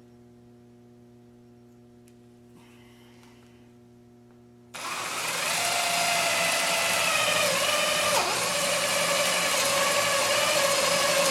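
Cordless drill boring a peg hole through a breadboard end into a backer board beneath. After a quiet low hum, the drill starts suddenly about halfway in and runs steadily, its pitch dipping briefly as the bit takes load.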